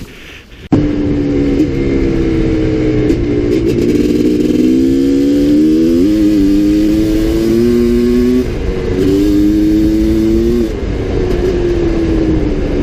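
Dirt bike engine revving hard, its pitch wavering and stepping up and down. It starts suddenly about a second in and runs without a break.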